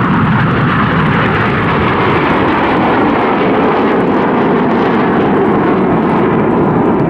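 BAE Hawk T1 jet aircraft flying over, a loud steady jet-engine roar.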